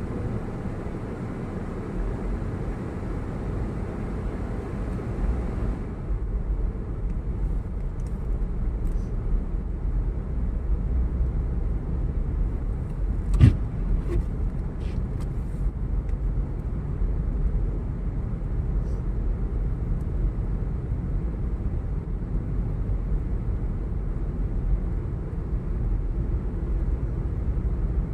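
Steady low rumble of a road vehicle heard from inside while riding. A single sharp knock comes about halfway through.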